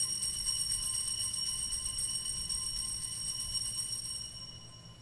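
Altar bells rung at the elevation of the host at the consecration. They ring with a shimmering, jingling tone and fade out about four and a half seconds in.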